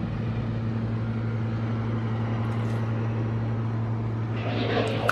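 A boat motor running steadily, a constant low hum.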